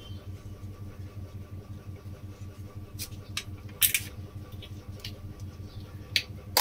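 Sharp clicks and taps of a bottle of mustard oil being picked up and opened, starting about three seconds in, the loudest just before four seconds and another near the end, over a steady low hum.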